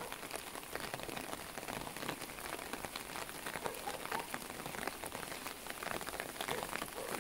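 Steady rain falling on open umbrellas, a dense run of separate drops ticking on the fabric.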